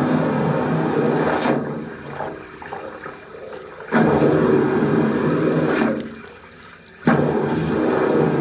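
High-pressure drain-jetting washer spraying water in three bursts of a few seconds each. A steady motor hum and the rush of the jet cut in and out together as the spray is triggered on and off.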